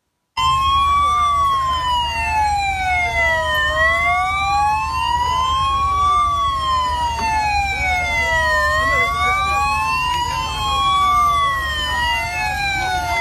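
Several police sirens wailing at once, each rising and falling slowly over a few seconds and out of step with the others, cutting in abruptly, over a steady low rumble.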